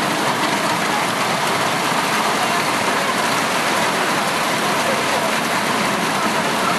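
Heavy rain pouring down in a thunderstorm downpour, a steady, even hiss.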